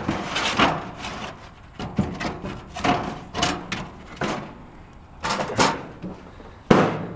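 Rummaging through a curbside trash pile: about a dozen short scrapes and knocks as objects are pulled and shifted, with a sharper knock near the end.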